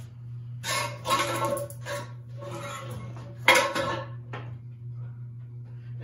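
Ceiling fan rattling and clattering in short metallic bursts as it starts to spin, with one sharp click about three and a half seconds in.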